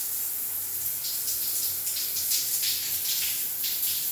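Hot water running from a bathroom tap with a steady hiss and small irregular splashes.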